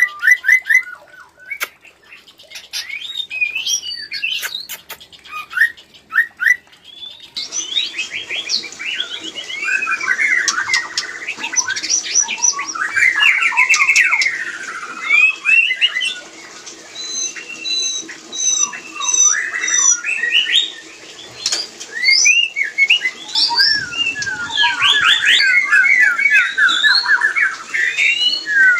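White-rumped shamas calling during mating: a fast, varied stream of whistled notes, quick rising and falling glides, rapid note runs and harsh squawks. About seven seconds in, the recording changes to a fuller, busier stretch of song.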